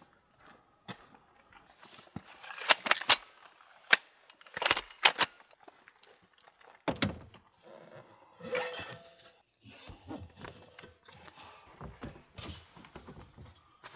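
Camping gear being handled: irregular sharp clicks and knocks, several in quick succession, with rustling between them.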